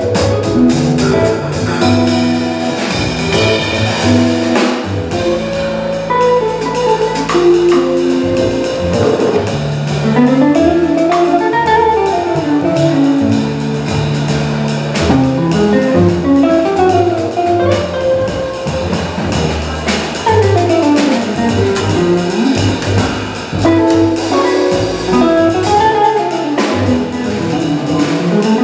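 Live jazz trio: an archtop hollow-body electric guitar plays runs of single notes that climb and fall, over an upright double bass and a drum kit.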